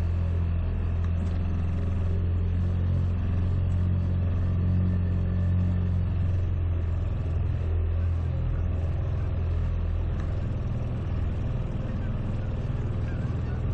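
Small boat outboard motor running steadily at trolling speed, a constant low engine hum with only a slight change in pitch about halfway through.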